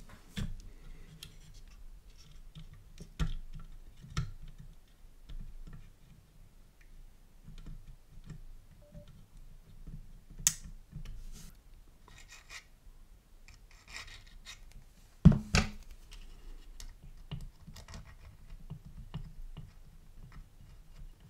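Scale-modelling hand work on a bench: light scratching and scraping with scattered small clicks of tools and styrene parts being handled, over a faint low hum, with a sharper click about ten seconds in and a louder knock about fifteen seconds in.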